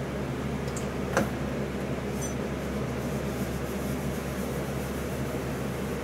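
Steady low hum and hiss of room tone, with a faint click about a second in.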